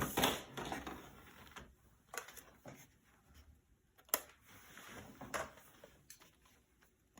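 Scattered clicks and knocks as a remote-control truck and its controller are handled and set up to run; no motor is heard running.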